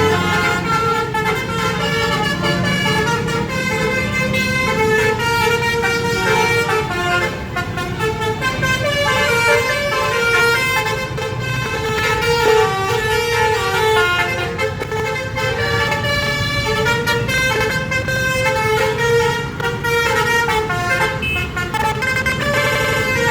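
Telolet bus horns, the multi-tone musical air horns of Indonesian buses, playing quick stepping tunes almost without pause, over the low running of bus engines.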